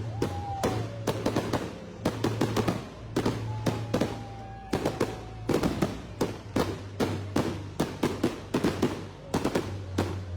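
Fireworks display: a rapid, continuous barrage of bangs and crackles, with a faint whistle that dips slightly in pitch near the start and again around the middle.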